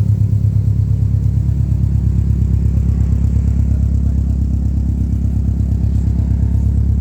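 Subaru's engine running at low revs while the car reverses, a steady low rumble with an even pulse.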